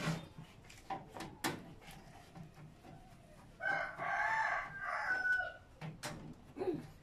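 A bird calling once, one long arched call lasting about a second and a half midway, over scattered light clicks and knocks from hands working on a desktop PC case.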